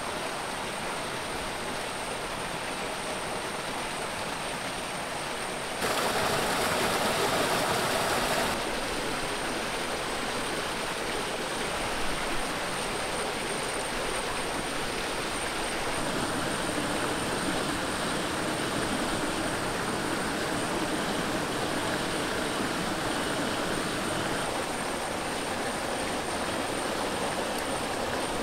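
Steady rush of running water, with a thin, steady high-pitched tone over it. The water is louder for about two and a half seconds starting about six seconds in, beginning and ending abruptly. There are two small clicks about twelve seconds in.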